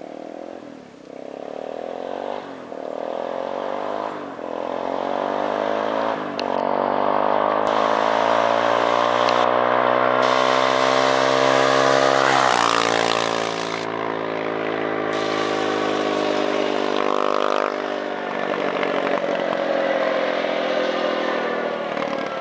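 Bombardier DS 650 Baja quad's single-cylinder four-stroke engine accelerating up the road through several gear changes. It passes close about twelve seconds in with a drop in pitch, then fades as it speeds away, shifting up once more.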